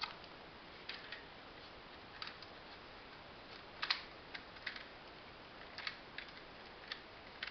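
Plastic clicks and snaps of an adjustable car windshield phone holder being handled, its joints and clamp moved by hand. About ten irregular separate clicks, the loudest about four seconds in.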